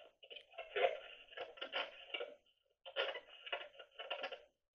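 Handheld spirit box sweeping through radio stations, playing short choppy bursts of broken radio sound and static through its small speaker, with brief gaps between the bursts.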